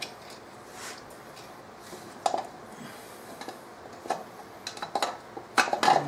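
Spark plug wire boots and a distributor cap being handled as the wires are moved onto the new cap, giving scattered short clicks and snaps of plastic and rubber. Near the end comes a quick run of sharper clicks.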